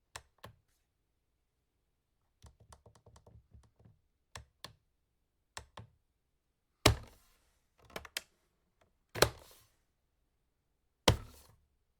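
A series of sharp clicks and knocks: a few light clicks, a quick run of about eight clicks, then four much louder thumps, each with a short rattling tail.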